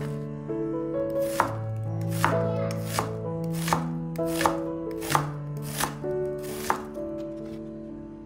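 Chef's knife slicing an onion on a wooden cutting board: about eight sharp chops, roughly one every three quarters of a second, with quiet instrumental music underneath.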